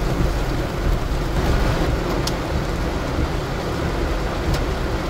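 Heavy rain pouring on a car's roof and windshield, heard from inside the cabin over the low hum of the idling car, with a few sharp ticks.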